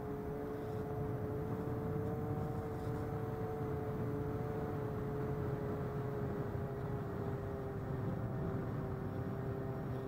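Electric motor and propeller of an AtomRC Swordfish RC plane in flight, giving a steady hum with a slight waver in pitch, heard over wind rush on the onboard camera's microphone.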